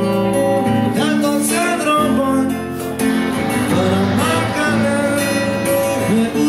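Acoustic guitar strummed and picked in a song by a solo guitarist-singer.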